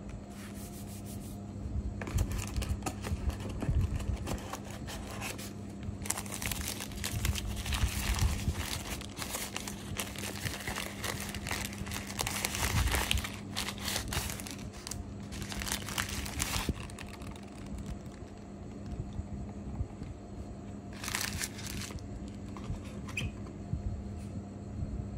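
Thin white wrapping paper being pulled off a computer mouse and crumpled by hand, crinkling in irregular bursts. The rustling is loudest in the middle, then dies down, with a short crinkle later on.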